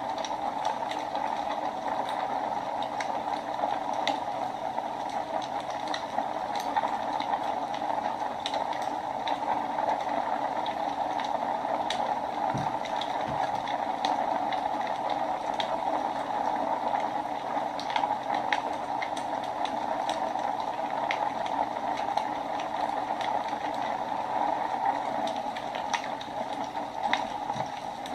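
Wood fire burning in a fireplace: a steady rushing hiss with many irregular sharp crackles and pops from the burning wood.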